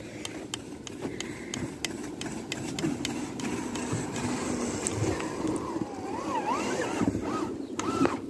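Traxxas TRX-4 RC crawler's electric motor and geared drivetrain running as the truck pushes through deep snow, with a whine that wavers up and down in pitch with the throttle over the last few seconds.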